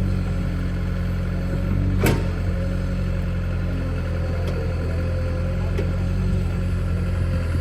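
Heavy diesel machinery running steadily at a low, even pitch, with a single sharp knock about two seconds in.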